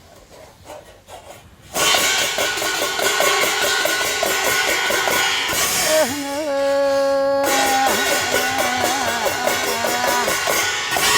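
Loud music with drumming starts suddenly about two seconds in, carrying a melody of long held notes that bend in pitch.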